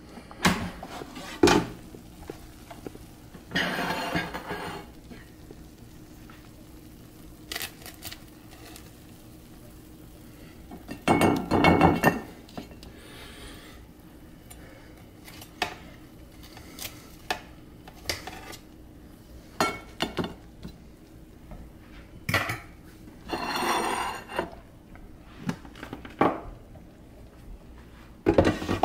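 Intermittent kitchen clatter: a Power XL air fryer's basket handled and chicken leg quarters served onto a glass plate, with clinks of utensils on dishes. Scattered single clicks, with two longer clattering runs, one in the middle and one near the end.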